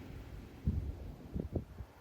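Wind buffeting the microphone in low rumbling gusts, two stronger ones around the middle, over a faint wash of ocean surf.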